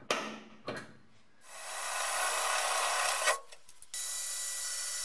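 A center punch strikes the sheet-steel floor pan twice, sharply, in the first second, marking the corners of a cut-out. Then an 18 V cordless drill bores into the steel for about two seconds, stops briefly, and drills again.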